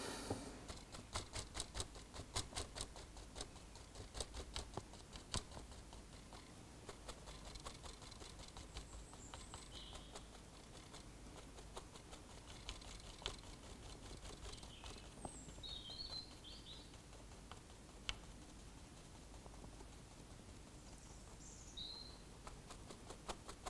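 Soft, quick dabbing taps of a sponge on a model diesel locomotive's roof, applying weathering. The taps come rapidly for the first few seconds, then more sparsely.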